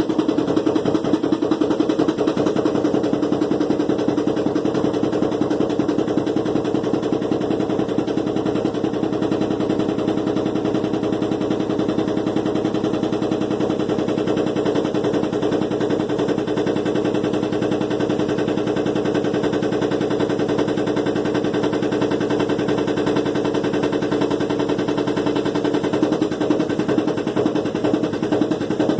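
Washing machine with a broken drum spider (cross-piece) running unbalanced: a loud, fast, unbroken knocking and rattling as the loose drum bangs about.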